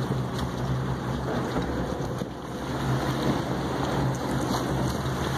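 A boat's engine running with a steady low hum, under a constant rush of wind and water noise.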